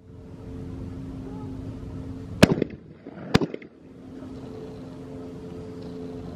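Two shotgun shots less than a second apart, a skeet double, each followed by a short echo, over a steady low hum.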